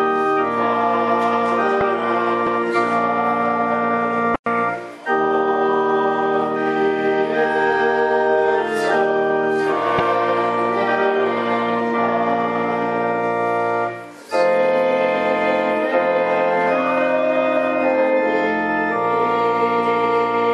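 Organ music in sustained, held chords, breaking off briefly twice, about four and about fourteen seconds in.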